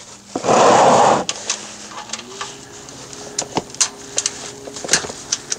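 A burst of rustling noise about a second long, then scattered sharp clicks of a wrench loosening the 15 mm oil drain plug under the truck, over a faint steady hum.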